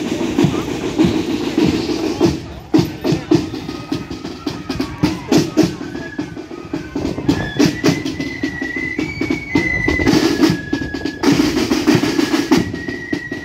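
Marching band's snare drums playing rolls and quick beats in march time, with a high melody of held notes joining about four seconds in.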